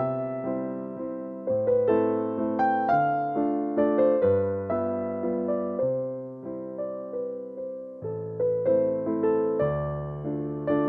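Background piano music: a melody over low bass notes, each note struck and then fading.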